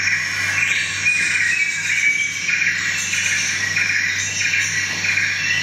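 Pulsing, cricket-like chirping noise at about two pulses a second over a steady low electrical hum, the live electronic sound of a dance performance.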